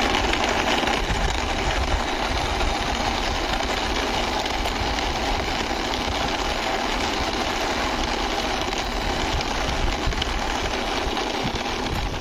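Plastic toy bus pushed by hand along a rough concrete ledge, giving a steady whirring rumble that holds at an even level throughout.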